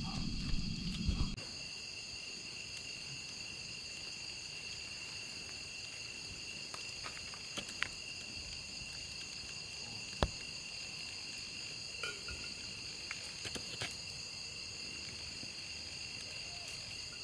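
Night insects calling in a steady chorus of several high pitched tones. A low rumbling noise opens it for about a second, and a few sharp clicks stand out now and then.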